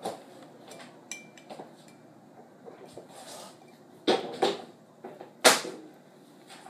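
Metal spoon knocking and clinking against the inside of a glass tumbler while scooping yogurt, a handful of sharp knocks with one short ring about a second in and the loudest about two-thirds of the way through.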